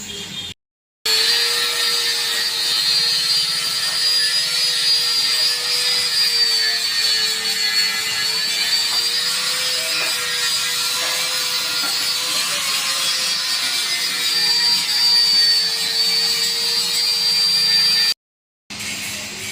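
Angle grinder running against metal: a steady whine that wavers slightly in pitch over a gritty rasp. It breaks off to silence briefly near the start and again near the end.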